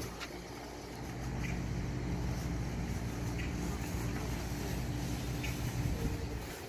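A motor vehicle's engine running close by, a steady low hum that swells about a second in and eases off near the end.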